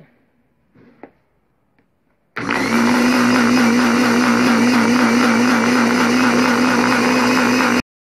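Mondial 400 W countertop blender switched on about two seconds in, its motor running steadily with a slightly wobbling hum as it blends eggs, vinegar and salt, the first stage of homemade mayonnaise before the oil goes in. It stops suddenly near the end.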